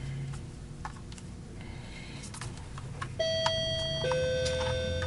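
Electronic two-note door chime, ding-dong: a higher note, then a lower one held ringing, after a few faint knocks.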